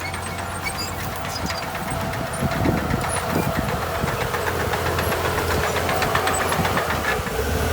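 Heavy diesel earthmoving machinery running steadily, with a low rumble and a fast metallic rattle that builds through the middle.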